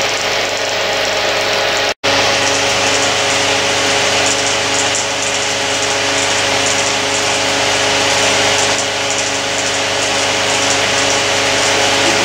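Steady mechanical whirring and hiss of running telecine machinery, a Bauer P5 16mm film projector and a motor-driven Nipkow scanning disk, with a steady hum underneath. The sound cuts out for an instant about two seconds in, then carries on unchanged.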